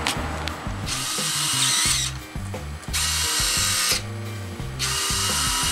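Retractable landing gear servos on a Blade 350 QX quadcopter running three times, about a second each, as the gear cycles, over background music with a bass line.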